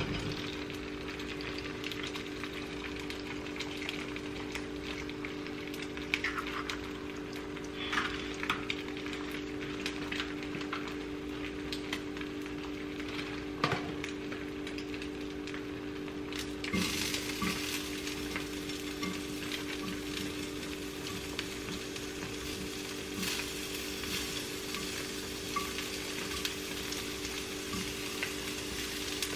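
Eggs frying in a hot pan on a gas stove, a steady sizzle with scattered light clicks and knocks of handling. The sizzle grows louder and brighter about halfway through, over a steady low hum.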